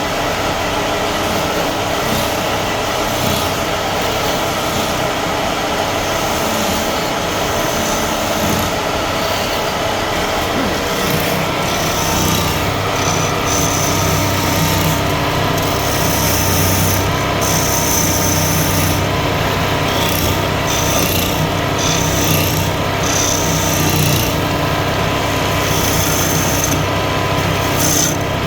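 Wood lathe running steadily, with a hand tool working against the spinning wood. A deeper hum comes up about eleven seconds in.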